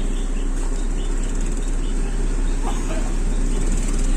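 Steady noise inside a moving car's cabin, a constant even rush with a low hum underneath.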